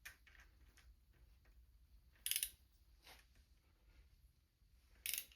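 Socket wrench ratchet clicking in two short bursts, about two seconds in and near the end, with a fainter click between, as intake manifold bolts are snugged down by hand.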